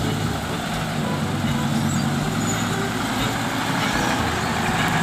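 Diesel engine of a heavy tow truck running steadily with a low, even drone.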